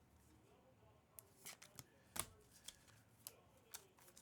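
Faint clicks and flicks of trading cards being handled and slid across one another, with one sharper snap about two seconds in.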